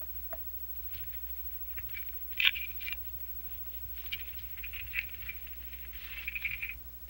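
Faint rustling of a cloth bag being picked up and handled, with scattered light clicks and one louder click about two and a half seconds in.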